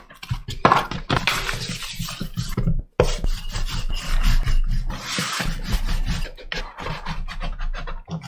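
Rasping, scraping sounds of bread-making work on a surface, in short strokes, with a sudden break about three seconds in.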